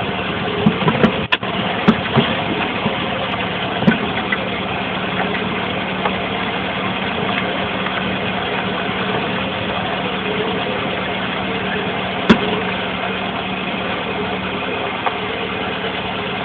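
Square-body Volkswagen Saveiro running with a steady engine hum and noise, broken by several short knocks in the first few seconds and one sharp knock about twelve seconds in. The knocks are the kind of clunk that worn suspension bushings make at the wheel.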